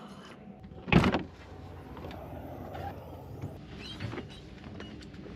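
Truck camper being packed up: one loud thump about a second in, then scattered clicks and light rattles as the camper's doors and gear are handled.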